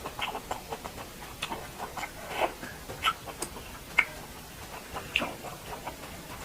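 A person eating duck curry close to the microphone: irregular wet chewing clicks and lip smacks, with a few louder smacks in the middle.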